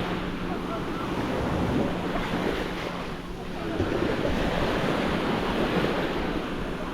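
Small waves washing onto a sandy beach, the surf swelling and easing, with wind buffeting the microphone.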